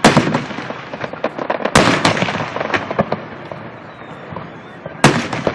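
Fireworks display: aerial shells bursting with three loud bangs (just after the start, about two seconds in, and near the end), amid a run of smaller crackling pops.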